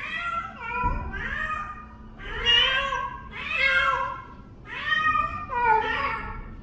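A domestic cat meowing over and over, a string of about six drawn-out meows roughly one a second, each bending in pitch.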